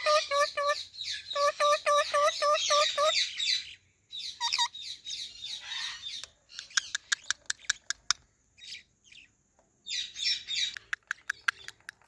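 Alexandrine parakeets chattering at their reflection. Runs of quick, evenly repeated notes fill the first three seconds, then come harsher calls, a fast string of sharp clicks about halfway through, and more chatter mixed with clicks near the end.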